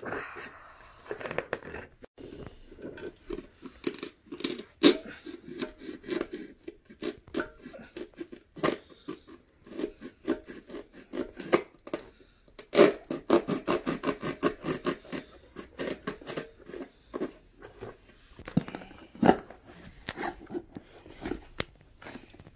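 Knife cutting through the glued surround and cone of a Sundown ZV5 15-inch subwoofer, and the old cone and spider being torn out of the basket: a quick run of short rasping, tearing strokes, with two dense spells, one about a fifth of the way in and a longer one a little past the middle. This is the old cone assembly being removed for a recone.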